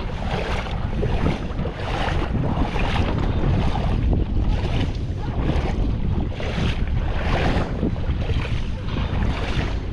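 Wind rumbling on the microphone over rhythmic splashing, about one splash every three-quarters of a second, from feet wading through shallow tidal water.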